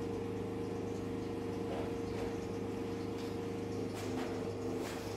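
A steady mechanical hum made of several fixed low tones, with a few faint light taps over it.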